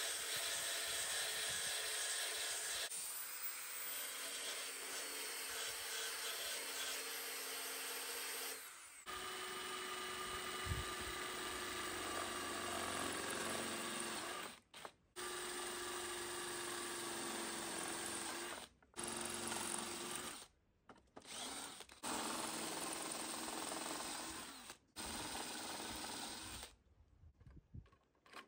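DeWalt 18V cordless drill running a step drill bit through a flat metal strip, in spells of a few seconds with brief stops between them. For roughly the first nine seconds a different steady noise of the same loudness is heard before it cuts over to the drill.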